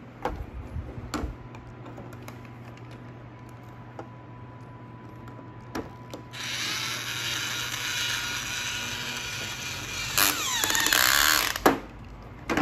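A battery toy power drill from a take-apart toy airplane set runs with a steady whir for about five seconds, starting about six seconds in and louder in its last second, while it drives a plastic screw into an engine piece. Before it, plastic pieces click and knock on the table.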